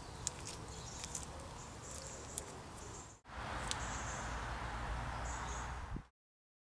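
Faint clicks and rubbing of a puncture-repair tool being worked into a motorcycle tyre's rubber tread, over a steady hiss. The sound breaks off briefly a little after three seconds and stops dead about six seconds in.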